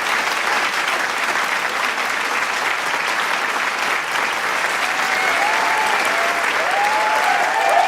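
Large crowd applauding, a dense, steady clatter of clapping. From about five seconds in, shouts and cheers rise over it.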